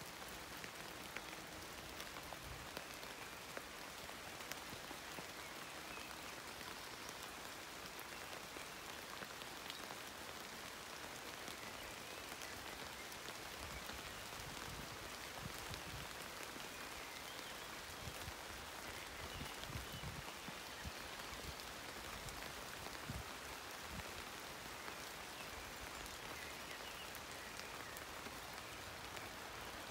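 Steady rain falling on the broad leaves of horse chestnut trees: an even hiss dotted with the ticks of single drops.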